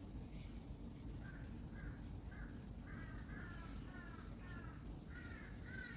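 Crows cawing in a rapid series of harsh calls, about two a second, starting about a second in and growing louder toward the end.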